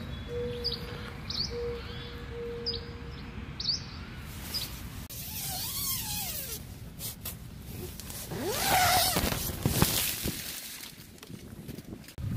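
Small birds give short rising chirps, about one a second, over a low outdoor rumble. Then nylon tent fabric rustles and the tent door's zipper is drawn open, loudest for a couple of seconds about eight seconds in.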